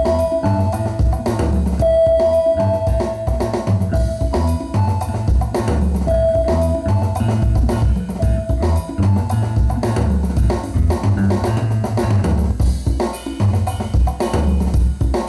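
Band music with a drum kit keeping a steady beat over a strong bass line, and a held mid-pitched note that comes back several times.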